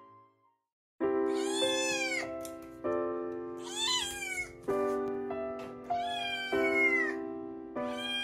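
A munchkin kitten meowing, four drawn-out high meows about two seconds apart, starting after a second of silence. Background music with sustained chords plays under them.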